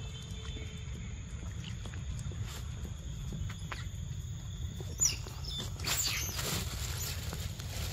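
Outdoor forest ambience: a constant low rumble and a steady thin high whine, with a short high squeak about five seconds in. About six seconds in comes a stretch of rustling, like footsteps through dry leaf litter, while the camera moves over the forest floor.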